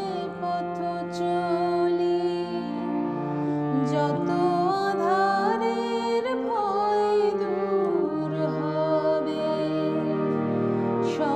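Music for a Bengali song: a harmonium holds sustained chords that change in steps every second or so, with a melody line gliding and bending in pitch above them.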